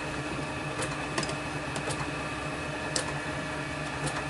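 A few light clicks and taps of small brass and steel model steam engine parts being handled and set down on a workbench, over a steady background hum.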